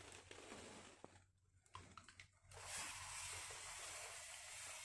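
Near silence: faint room tone with a few soft clicks, then a steady low hiss from a little past halfway.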